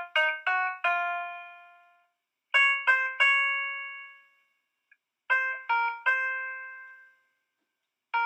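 Background music: short phrases of three plucked notes, each note ringing out and fading, with pauses of about a second between phrases.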